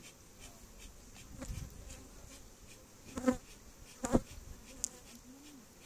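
Honeybees buzzing steadily around an opened wooden hive box as its comb frames are handled, with two short, sharp knocks about three and four seconds in.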